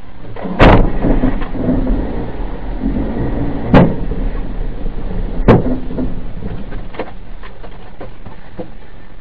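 Explosions going off in a fire: three loud, sharp bangs, about a second in, near four seconds and about five and a half seconds in, followed by a few smaller pops, over a steady low rumble.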